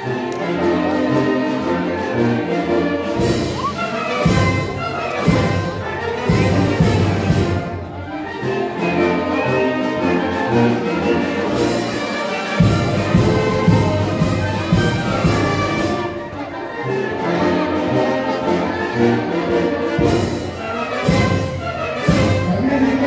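Brass band music, trumpets and trombones carrying the tune over a steady beat.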